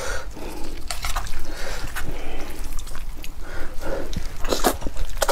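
Close-miked wet eating sounds: chewing and slurping glass noodles in a thick braised sauce, with sticky mouth smacks and clicks, the loudest near the end.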